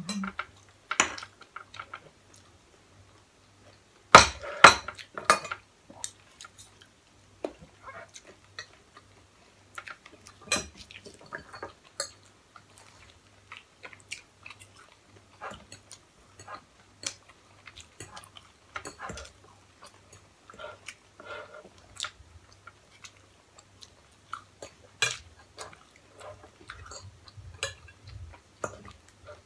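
People eating: forks and spoons clinking and scraping on plates, with chewing sounds in between; a cluster of louder clinks comes about four seconds in.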